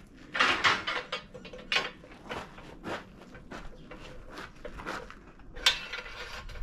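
Irregular metal clanks and clicks from a tube bender as 1-inch tubing is handled and worked in it.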